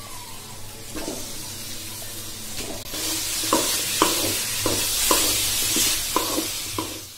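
Raw chicken pieces start sizzling in hot oil and masala in a metal kadai from about three seconds in. A flat spatula stirs them and knocks against the pan about twice a second.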